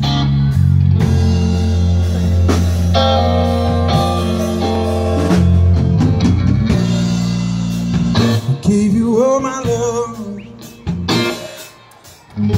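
Live amplified band playing the instrumental opening of a song on electric guitar, bass guitar and drum kit. A held, wavering high note stands out about nine seconds in, and the band drops away briefly near the end.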